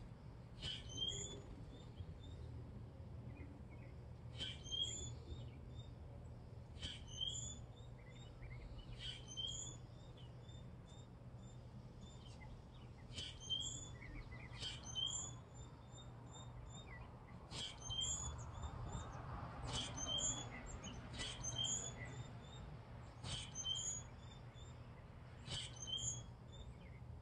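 Gray catbird calling from a backyard feeder: a short, sharp call repeated about every two seconds, with faint chirps in between.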